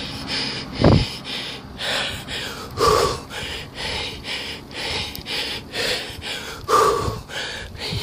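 A cyclist breathing hard close to the microphone while riding: quick puffs of breath several times a second, with three louder gasps.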